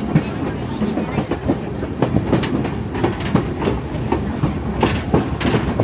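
Passenger train running along the track: a steady rumble of wheels on rail, with frequent irregular clicks and clatter from the cars, louder for a moment about five seconds in.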